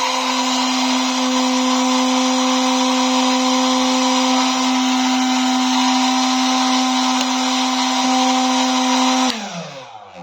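Small 12 V DC motor fan running at a steady speed with a strong electric whine, then switched off about nine seconds in and spinning down, its pitch falling as it stops.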